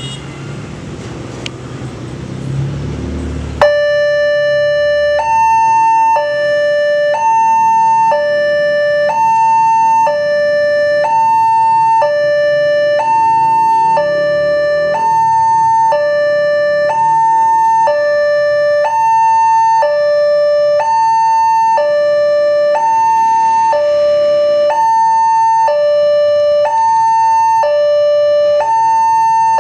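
Railway level-crossing warning alarm sounding from the horn loudspeaker on the crossing signal post, warning that a train is approaching: an electronic two-tone signal alternating between a low and a high note, each held about a second. It starts suddenly a few seconds in, over the noise of passing motorbikes and cars.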